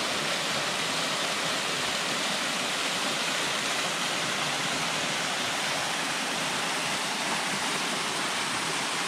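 Small creek waterfall pouring over rock into a shallow pool: a steady rush of falling and splashing water.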